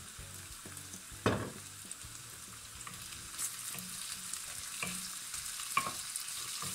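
Potato slices, shallot and cherry tomatoes sizzling in olive oil in a non-stick frying pan, stirred and pushed around with a wooden spoon, with a few light clicks of the spoon. One sharp knock about a second in is the loudest sound.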